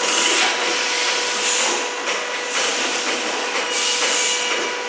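Four-lane automatic cup filling and sealing machine running: a steady hum with a hiss that swells and fades every second or so as it cycles.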